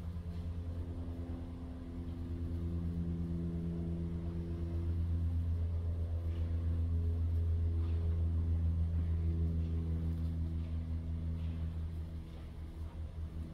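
Steady low mechanical hum, like an engine or motor running, that grows louder through the middle and eases off near the end.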